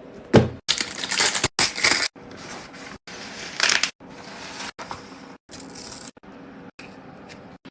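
Crinkling, crunching noises in a series of short bursts, broken by abrupt cuts.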